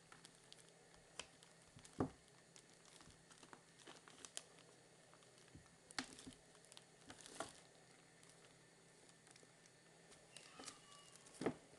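Two kittens scuffling in play fight: faint scattered taps and scuffles, with a louder thump about two seconds in and another near the end.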